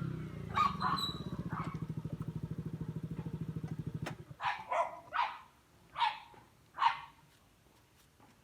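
Yamaha Aerox scooter's single-cylinder engine idling steadily through an aftermarket Akrapovic-copy exhaust, then shut off abruptly about four seconds in. A dog barks a few times over the idle, and then five louder times after the engine stops.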